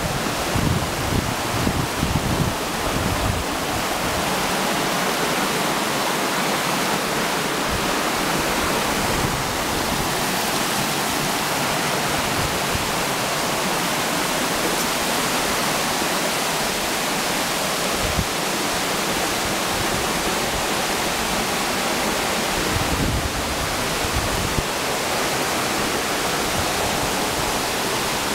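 Waterfall and cascading stream rushing steadily, an even hiss of falling water. A few low bumps on the microphone in the first few seconds and again near the end.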